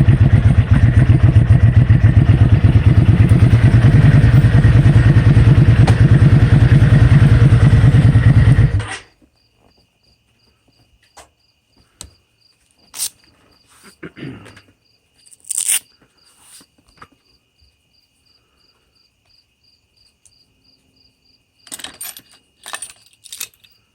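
A loud engine running with a rapid low pulsing stops abruptly about nine seconds in. After that, insects chirp in a steady pulsing trill, with a few scattered clicks and knocks.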